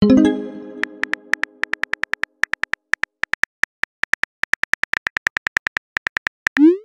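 Texting-app sound effects: a plucked chime that fades over about two seconds as a chat message pops up, then a quick run of keyboard tap clicks as a reply is typed, and a short rising swoosh near the end as the message is sent.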